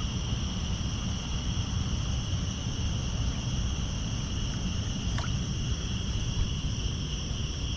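Crickets chirping in a steady night chorus, their high, even trill unbroken throughout, over a low steady rumble.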